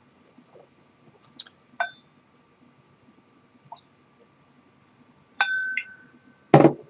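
Whisky poured from a glass bottle into a tulip-shaped tasting glass: a few small clicks, then a clear glass-on-glass clink that rings briefly. A louder, short knock comes near the end.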